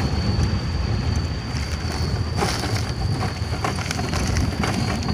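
Pickup truck on the move, heard from its open bed: a steady low rumble of engine and tyres with wind buffeting the microphone, a thin steady high whine and a few light rattles.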